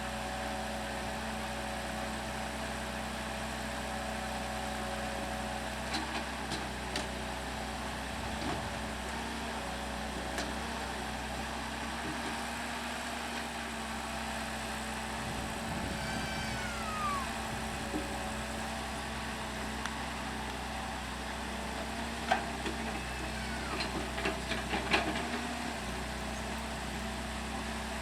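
CAT excavator's diesel engine running steadily, with a falling whine once midway and a cluster of sharp clicks and knocks near the end.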